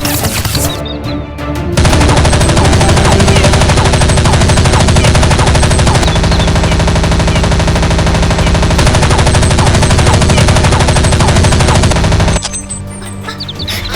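Sustained rapid machine-gun fire, a dubbed gunfire sound effect, over background music. It starts loud about two seconds in and cuts off suddenly near the end, leaving the music.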